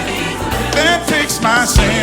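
Gospel music: a singer's voice over a band with bass.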